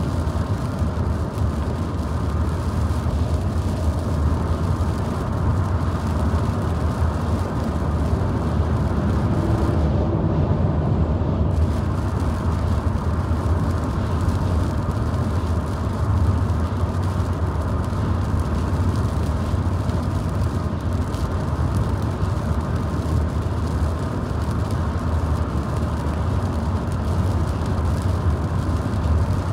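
Steady road and engine noise of a car driving at speed, heard from inside the cabin, a low, even rumble.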